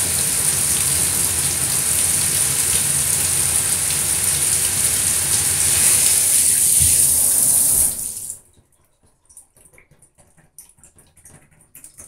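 Water spraying from a handheld shower head onto a crumpled plastic bag: a steady hiss of spray pattering on the plastic. The water cuts off suddenly about eight seconds in, leaving only faint scattered ticks.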